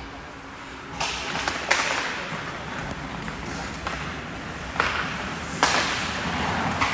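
Ice hockey play on an indoor rink: four sharp hits from sticks, puck and skates on the ice, each trailing off in a hiss, over a steady rink background.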